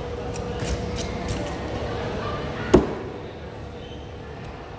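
Knife cutting a skipjack tuna on a board: a few light taps, then one sharp heavy chop a little under three seconds in.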